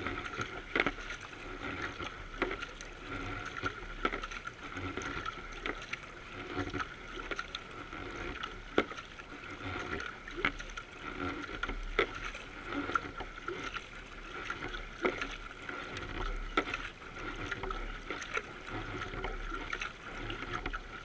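Racing kayak under way, water rushing and splashing along its bow, with short sharp splashes about every second or so as the paddle strokes go in.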